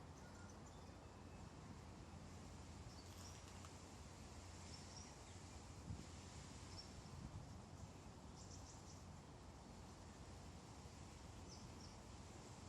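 Near silence: a faint steady outdoor hum with a few scattered high, brief bird chirps.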